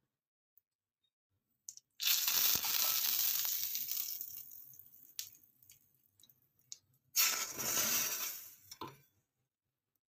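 Hot spice tempering (tadka) sizzling: a first sizzle begins about two seconds in and fades away over a couple of seconds, then a second, sharper sizzle about seven seconds in as the tadka is poured into cold curd, dying down within about two seconds.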